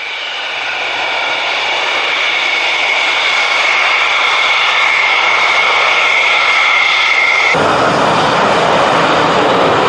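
Military fighter jet engines running on a runway: a loud jet roar with a steady high turbine whine, growing louder. About seven and a half seconds in, the whine cuts off abruptly and a deeper, fuller roar takes over as a second fighter makes its takeoff run.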